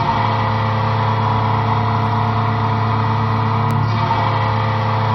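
Hockey goal horn sounding one steady, low, unbroken blast.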